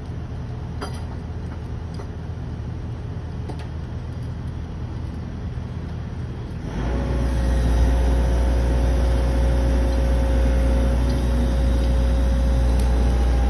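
Compact excavator's diesel engine running steadily. About seven seconds in it becomes louder and a steady whine joins it.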